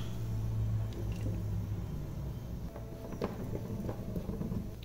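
Steady low kitchen hum with a few faint ticks and crackles from oil heating in an aluminium pan, before anything is added.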